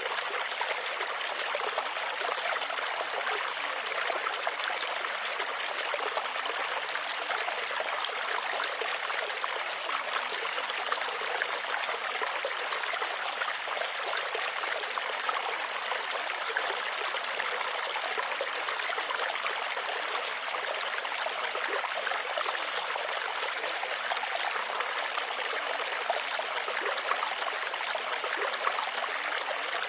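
Steady running-water sound, like a flowing stream, without a break or change: the masking track of a subliminal audio, under which the affirmations are hidden.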